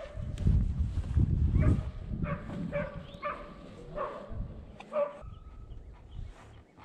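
Hunting dogs barking off in the woods, a run of short barks about every half second to a second, over a low rumble.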